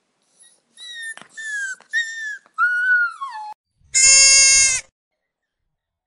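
Newborn puppies whining: four thin, high cries that each slide a little downward, the last one longer and dropping further. Then comes one much louder bleating call, held level for about a second.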